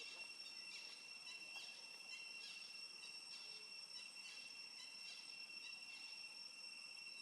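Faint, steady, high-pitched chorus of insects, with a few faint irregular clicks.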